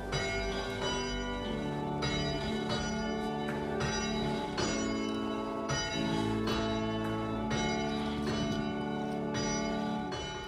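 Church bells ringing, a new stroke about every two-thirds of a second, each tone humming on and overlapping the next.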